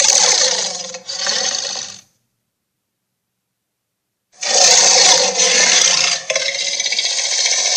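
A cartoon sea monster's rough, rattling growl sound effect, heard twice. The first growl cuts off about two seconds in; the second starts after a couple of seconds of silence and continues on.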